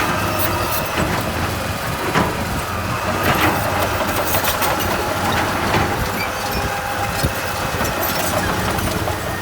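Heavy earthmoving machine's diesel engine running steadily, with a few sharp clanks or knocks, the clearest about two and three and a half seconds in.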